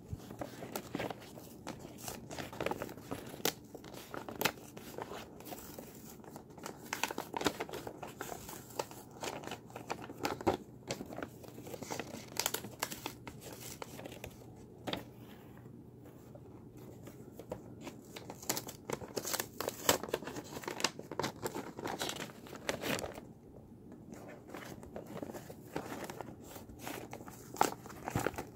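A sheet of drawing paper handled close to the microphone: irregular crinkling and rustling, with short quieter pauses about halfway through and again near the end.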